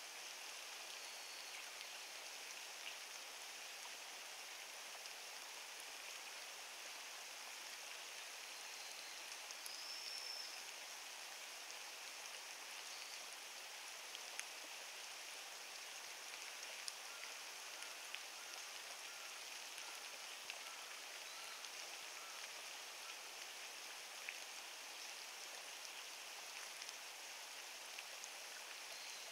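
Steady light rain falling, with scattered drops ticking sharply now and then. A brief high chirp sounds about ten seconds in.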